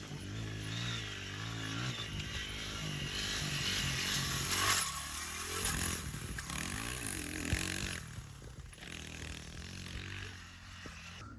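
Honda XR100 dirt bike's small single-cylinder four-stroke engine running while being ridden, its revs rising and falling with the throttle, with wind noise over it. The engine gets quieter in the last few seconds.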